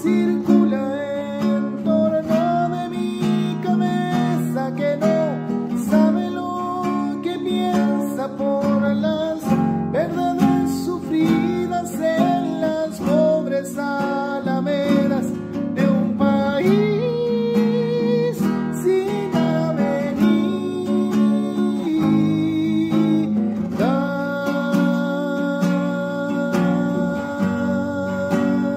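Classical acoustic guitar strummed and picked in a steady accompaniment, with a man singing long, held notes over it.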